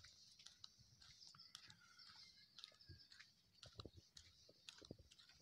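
Near silence: faint, irregular clicks and ticks over a steady, faint high hiss.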